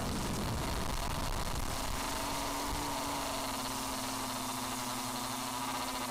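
Motors and propellers of a homemade drone buzzing steadily in flight, picked up by the camera on board; a steady hum settles in about two seconds in.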